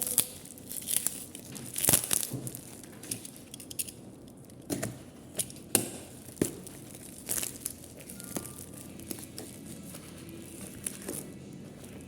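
Packaging being handled and opened: irregular crinkling and tearing of wrapping, with scattered sharp clicks and taps.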